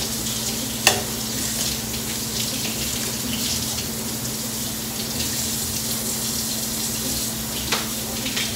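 Kitchen tap running steadily into a sink, with two short clinks, about a second in and near the end.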